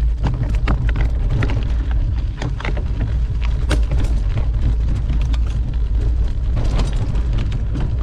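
A mountain bike riding along a dirt trail: a steady low rumble of wind on the microphone, with irregular clicks and rattles from the bike over the ground.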